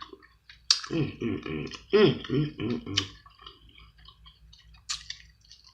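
A woman's wordless voice sounds, a few short murmured runs with rising and falling pitch, followed by a couple of sharp clicks.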